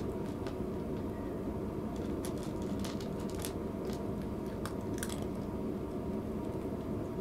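A cat eating dry food from a plastic bowl, crunching it in a string of short sharp bites that stop about five seconds in.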